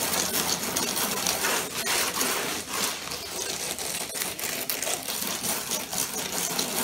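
Concrete hand float scraping back and forth over wet concrete seeded with pebbles, a continuous gritty rasp with rapid small clicks as the stones are pressed down and covered with slurry.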